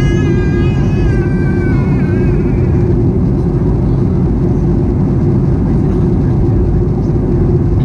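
Steady cabin roar inside a Boeing 737-800 on approach: its CFM56-7B engines and the airflow, heard from a window seat over the wing. A higher wavering tone rides over it for the first two seconds or so.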